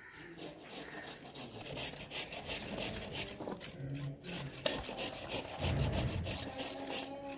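Carrots being grated by hand on a grater: quick, rhythmic rasping strokes, about four or five a second.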